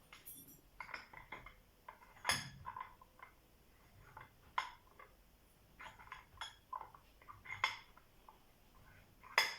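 Irregular metal clicks and clinks as a wafer lock is handled and fitted into a vise, with a sharper knock about two seconds in and another near the end.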